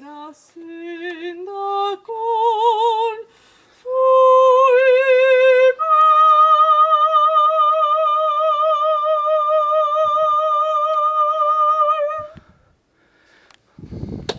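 A woman singing solo and unaccompanied, with a strong vibrato. A few short phrases lead into one long high note, held for about six seconds before it stops.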